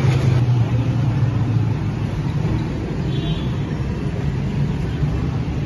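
Steady low mechanical rumble, like running machinery or engines, louder in the first two seconds and then easing slightly. A faint short high tone sounds about three seconds in.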